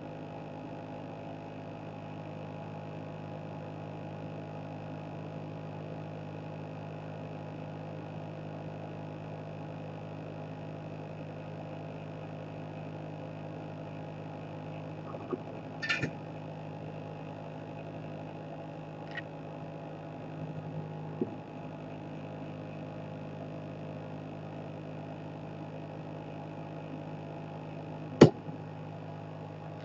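Steady electrical hum at several fixed pitches, with a few light clicks around the middle and one sharp click near the end.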